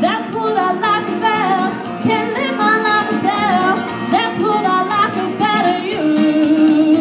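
Young woman singing a country song into a microphone over backing music with guitar.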